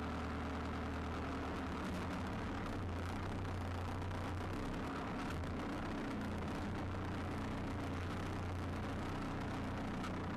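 Tractor engine running steadily with an even low drone as the tractor creeps slowly forward.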